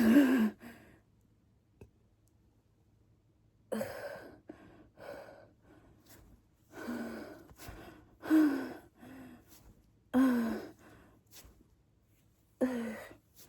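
A woman burping several times after drinking: short burps with a falling pitch. The loudest comes right at the start and the rest follow every second or two.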